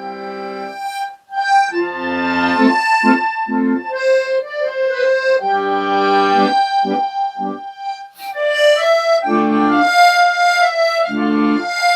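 Accordion playing a melody in a slow go-go rhythm: held right-hand melody notes over short, repeated left-hand bass and chord buttons, with a brief break about a second in.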